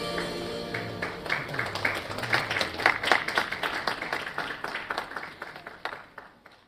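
The chromaharp ensemble's last chord dies away as an audience begins clapping about a second in. The applause peaks, then fades out near the end.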